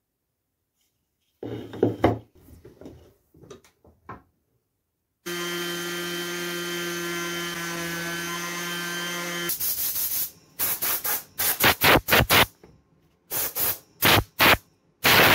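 Light handling and rubbing of wooden signs, then a Ryobi random orbital sander running steadily for about four seconds with a humming, pitched drone, sanding the face of a carved wooden sign. After it stops comes a quick series of short, loud noise bursts.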